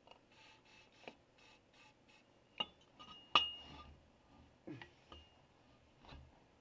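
Metal parts clinking and knocking as a hydraulic cylinder and tools are handled on a workbench: a quick run of short rustling strokes at first, then a handful of separate knocks, the loudest a sharp clink with a brief ring about three and a half seconds in.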